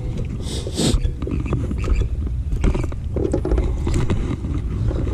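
A largemouth bass on the line flopping and thumping against a boat's carpeted deck while it is grabbed and handled: a string of irregular knocks and rustles over a steady low rumble.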